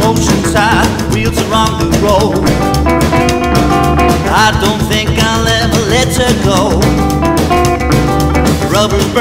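Band music: a song with guitar over a drum kit.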